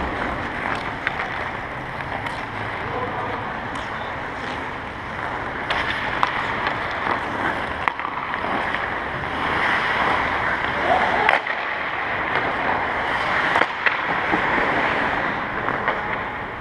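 Ice hockey skates carving and scraping across the ice, with a few sharp clacks of sticks and puck scattered through it, the loudest about eleven seconds in.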